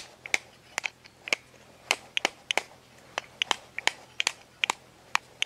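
Walnut being cracked open with a metal lever nutcracker and its shell broken apart by hand: a quick, irregular run of sharp cracks and snaps, several a second.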